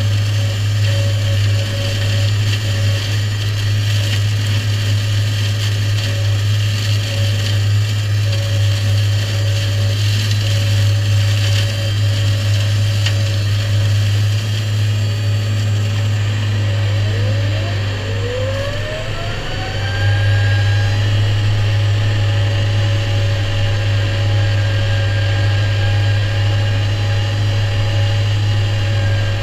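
Shelbourne side-arm flail mower cutting ditch-bank grass, driven off a New Holland tractor: a steady low drone of engine and spinning flail head. About two-thirds through, a whine rises in pitch and then holds as a steady tone.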